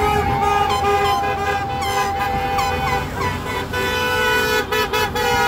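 Many car and truck horns honking at once from a passing line of vehicles, several held blasts at different pitches overlapping over the sound of the traffic.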